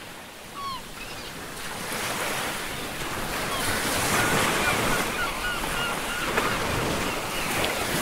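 Ocean surf washing steadily, fading in over the first couple of seconds, with seagulls calling in short bursts over it, most often around the middle.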